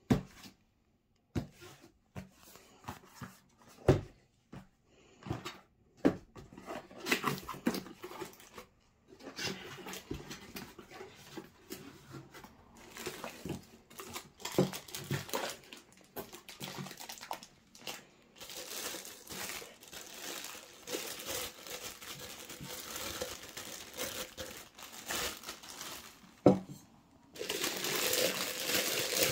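Cardboard gift boxes handled and opened with scattered knocks and taps, then plastic wrap crinkling and rustling as it is pulled off stainless steel milk pitchers. It grows louder in the last part, with one sharp knock near the end.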